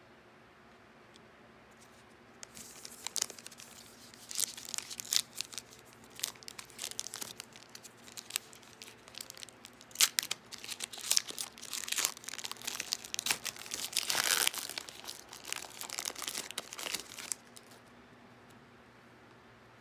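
Foil wrapper of a trading-card pack being torn open and crinkled by hand. The crackling starts a couple of seconds in, goes on and off with sharp rips that are loudest around the middle and a few seconds before the end, then stops shortly before the end.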